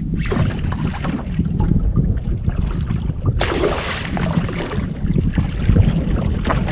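Wind buffeting the microphone with a steady low rumble, over water lapping around a small boat, with a louder rush of noise about three and a half seconds in.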